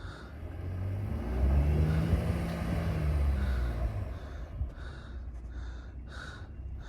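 Truck engine revving up and easing back down, with a low rumble under it.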